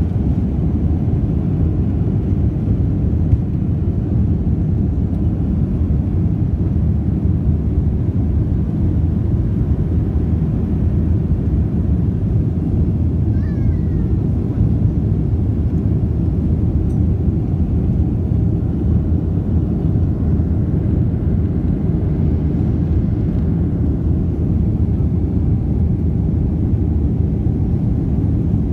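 Cabin noise of an airliner at takeoff power, lifting off and climbing out, heard from a seat over the wing: a steady deep rumble of engines and rushing air that holds level throughout.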